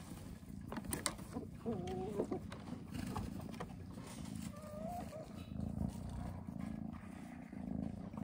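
Close-up sounds of a sheep being hand-milked into a plastic cup: a steady low rumbling and rustling with a few sharp clicks about a second in, and two short wavering animal calls, about two seconds and five seconds in.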